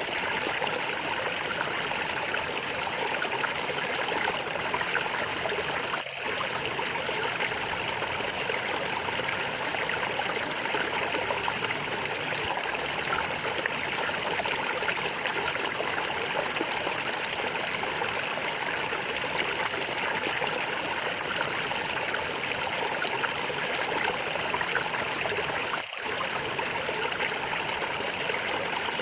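Small stream flowing and gurgling steadily over stones, with two very brief dips in the sound, about six seconds in and near the end.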